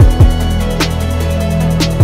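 Background electronic music with a steady beat: deep bass-drum hits that drop in pitch, a sharp snare about once a second, and held bass notes underneath.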